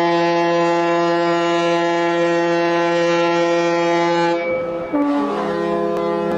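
Ship's horn sounding a long, steady, loud blast. About four and a half seconds in the note breaks off and a different horn note takes over and holds.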